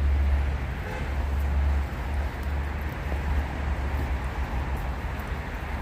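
Wind buffeting the microphone: a low, fluctuating rumble, strongest for about the first two seconds and then easing.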